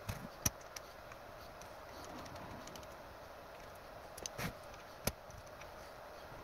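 Printed ABS parts and steel smooth rods of a 3D printer's X-axis gantry being handled and fitted by hand: a few sharp clicks and knocks, the loudest about half a second in and about five seconds in, with a brief scrape just before the second one, over a steady low hiss.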